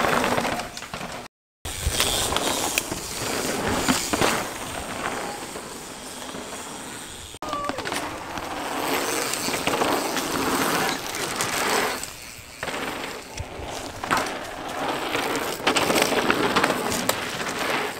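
Downhill mountain bike running fast over a dirt trail: knobby tyres rolling and crunching over dirt and rock with the bike rattling, rising and falling in surges. The sound breaks off abruptly twice, a short dead gap near the start and a sudden change about halfway, where clips are cut together.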